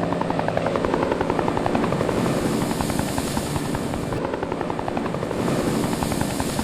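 Helicopter rotor chopping steadily in fast, even beats over a low engine hum, like a firefighting helicopter hovering overhead.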